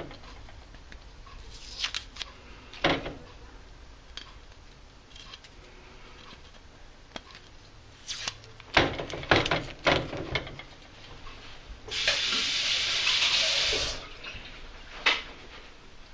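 Blue electrical tape being peeled off a steel knife blade after etching: scattered rustles and small taps, then about twelve seconds in a steady ripping hiss lasting about two seconds as a long strip pulls free.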